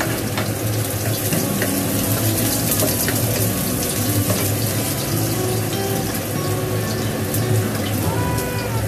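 Chopped garlic sizzling steadily in hot oil in a wok, with a wooden spatula clicking and scraping against the pan as it is stirred.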